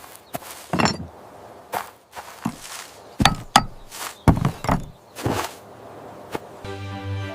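An irregular series of knocks and thumps, about a dozen separate strikes, some with a deep thud. Music comes in near the end.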